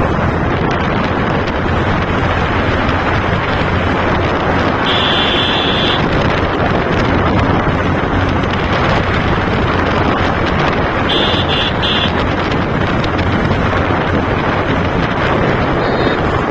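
Wind buffeting the microphone over the steady drone of a motorcycle being ridden. A high beeping tone sounds for about a second around five seconds in, and again as a few short beeps around eleven seconds in.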